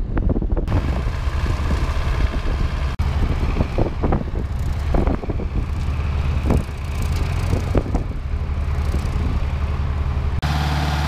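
Deutz D6806 tractor's air-cooled six-cylinder diesel engine running, with scattered sharp knocks and clatter over the steady engine note. The sound changes abruptly a few times, and near the end it settles into a steadier, even running note.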